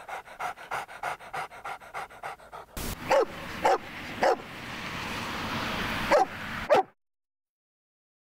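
A dog panting quickly, about five breaths a second, then a yellow Labrador retriever barking five short barks over a rising hiss. The sound cuts off suddenly near the end.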